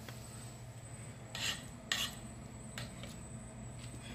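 About four short scrapes of a kitchen utensil working creamy cake filling, as it is spread over a cake layer, over a faint steady low hum.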